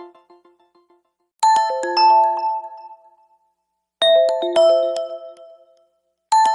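Windows system sound effects: short bell-like electronic chimes, three of them in turn, each of two notes that ring and fade out.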